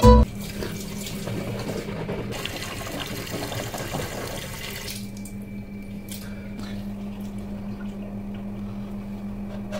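Water running from a tap into a bathroom sink, with a steady low hum beneath; the running water grows softer about five seconds in.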